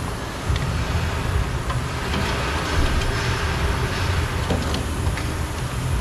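Steady low rumble of background shop machinery, with a few faint clicks and taps as screws are worked out of a pickup truck's door frame.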